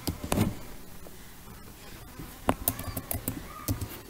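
Computer keyboard keys clicking: a handful of separate keystrokes, scattered and irregular.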